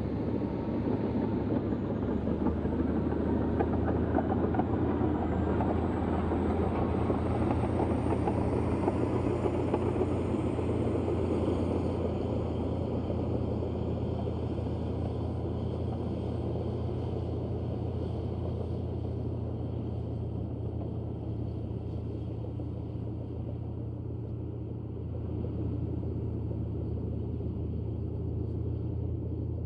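Komatsu D155A crawler bulldozer's diesel engine running steadily with a deep rumble, easing off slightly after about twelve seconds.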